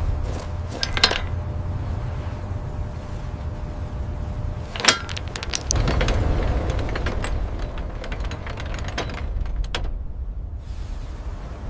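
Scattered sharp metallic clinks and clatters over a steady low rumble. The loudest clinks come about a second in and again around five seconds in.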